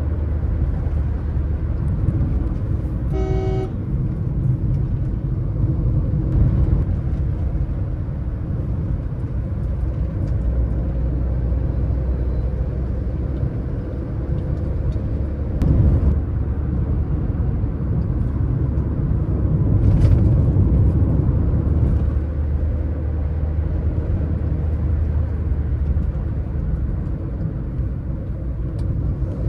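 Car driving with a steady low rumble of engine and road noise. A vehicle horn gives one short toot about three seconds in, and there are two brief knocks midway.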